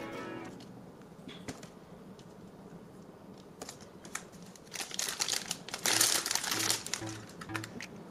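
Crinkling of a plastic blind-bag wrapper handled by hand, loudest in the second half, with a few light taps on the table before it.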